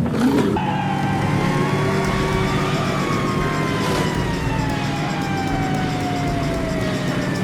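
Vehicle sound effect: a steady low engine drone with a long whine that falls slowly in pitch.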